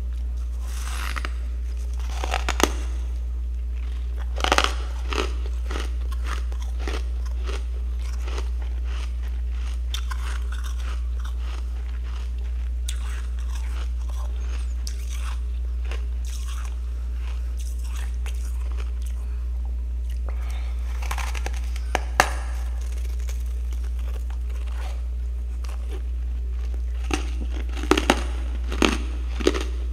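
Freezer frost ice being bitten and chewed: short bursts of crunching at intervals, several in the first few seconds, another around two-thirds of the way through, and a cluster near the end, over a steady low hum.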